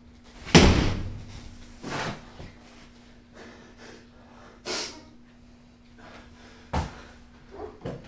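A sudden loud bang, like a slam, about half a second in, dying away quickly. Fainter knocks and bumps follow, with a short hiss a little before the five-second mark.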